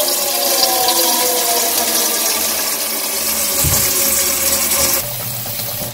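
Tap water pouring steadily into a stainless steel basin as it fills, turning quieter about five seconds in.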